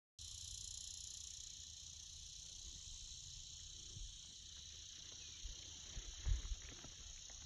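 A steady high-pitched insect chorus drones without a break, over a faint low rumble. A few dull thumps come about six seconds in.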